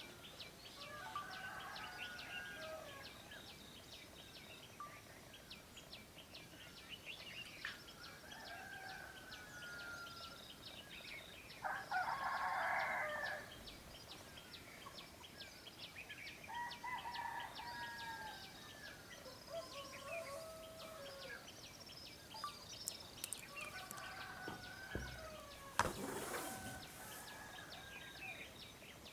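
Village dawn chorus: a rooster crows loudly once, about twelve seconds in, among softer fowl calls and songbirds chirping throughout. A fast, steady high ticking runs underneath. There is a brief burst of noise near the end.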